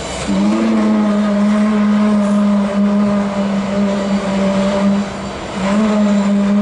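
Union Pacific Big Boy 4014 steam locomotive whistle blowing: one long, low, steady blast of about five seconds that slides up to pitch as it opens, then after a brief break a second, shorter blast near the end.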